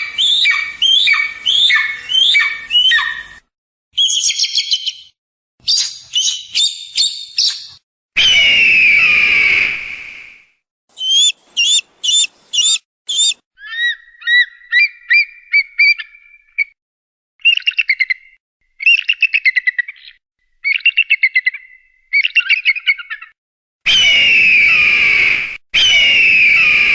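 Eagle calls in a series of separate recordings that start and stop abruptly: runs of short, falling, whistled notes, fast chattering series, and long drawn-out screams, one in the middle and a longer one near the end.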